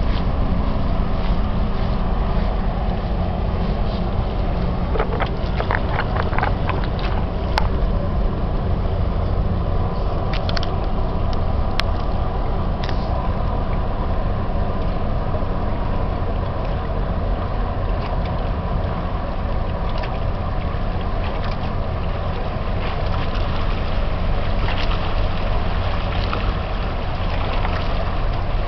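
Steady low rumble of the pusher tug's diesel engines as the tug and freighter pass across the river, mixed with wind buffeting the microphone. A few light clicks come about five to eight seconds in.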